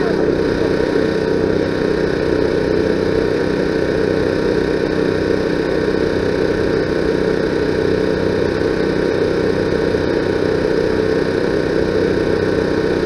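A steady mechanical hum with several constant tones, unchanging throughout.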